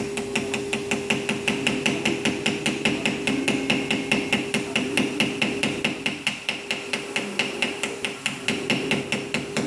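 Small hammer tapping lightly and rapidly, about four to five taps a second, on a soft brass rivet end to flatten ('mushroom') it onto the bushing of a Victorinox pocket knife during assembly.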